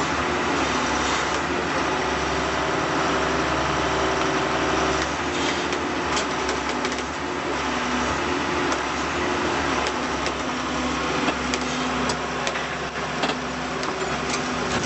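Engine running steadily at a constant speed, with a few short clicks and knocks.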